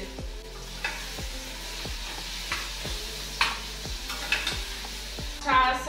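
Chopped red onions frying in melted butter in a small saucepan, sizzling steadily while a spoon stirs, scraping and tapping against the pan every so often. The onions are being softened, not browned.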